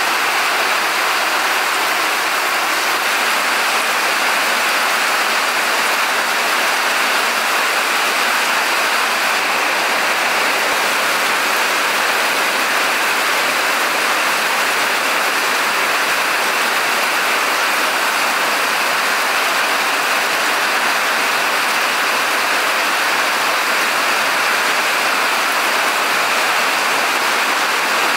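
Heavy rain falling steadily outside, a constant even hiss with no let-up.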